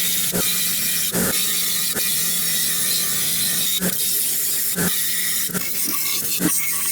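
Power tool cleaning the brass tank of a vintage gasoline blow torch: a steady hiss with a soft knock about once a second.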